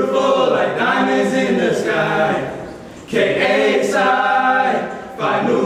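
A small group of men singing together a cappella, in long phrases with brief breaks about three seconds in and again near the end.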